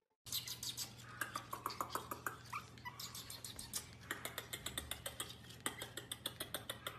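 A Pomeranian puppy making soft little whimpers, over a run of rapid light clicks at about five a second.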